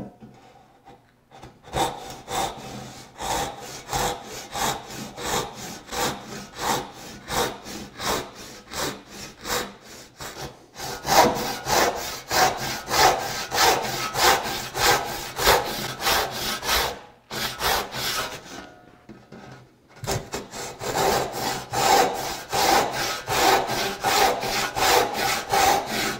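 Brass-backed hand saw rip-sawing the cheek of a tenon in a vise: steady, rhythmic back-and-forth strokes through the wood, stopping for a couple of seconds about two-thirds of the way through before the sawing resumes.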